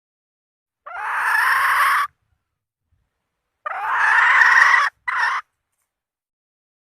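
Red junglefowl hen calling, the call a hen uses to summon a rooster: two drawn-out calls of about a second each, the second followed at once by a short one, played as a trapping lure.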